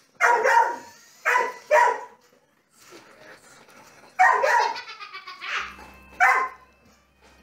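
Dog barking in play while chasing a toy: a string of short, sharp barks in small clusters with quiet gaps between.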